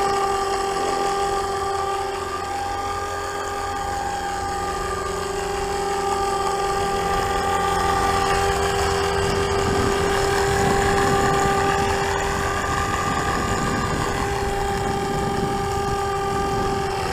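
FORZA 450 RC helicopter running, its rotor and drivetrain making a steady whine that wavers slightly in pitch. Its main gear is partly stripped, which the owner found to be the cause of an abnormal noise during rotor spin.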